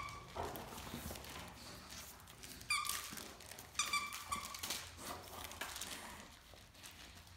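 Squeaky dog toy squeaked in short bursts as a Great Dane mouths it: one squeak at the start, then a few more about three and four seconds in. Light clicks and knocks in between.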